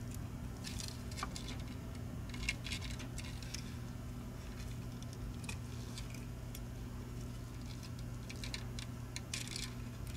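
Plastic shell of a Logitech G Pro Wireless mouse being handled and pressed back together by gloved hands: scattered small clicks, taps and scrapes in short clusters, over a steady low hum.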